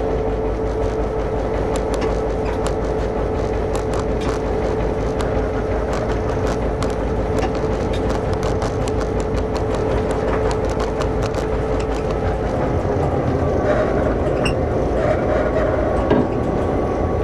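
NOHAB-built DSB class MY diesel-electric locomotive with a GM EMD two-stroke V16 engine, running steadily at low speed as heard from the cab, with a steady whine that fades out about twelve seconds in. Scattered sharp clicks run over the engine noise.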